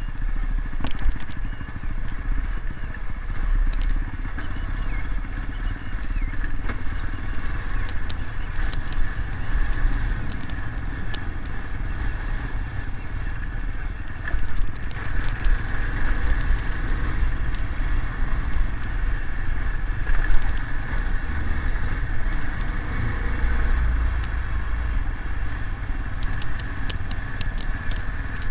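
Small motorcycle engine running steadily while riding a rough dirt trail, over a heavy low rumble. Short clicks and rattles are scattered throughout.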